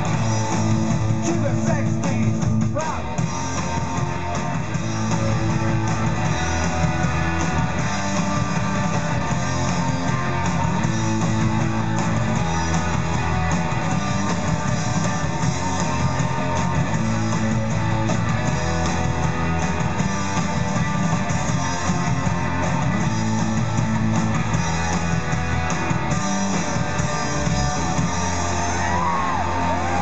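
Live rock band playing: electric guitars over a bass line that steps between notes, with some singing.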